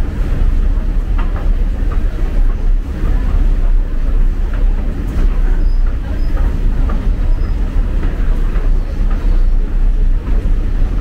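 Subway train running: a steady low rumble of the wheels and car, with faint rail clicks.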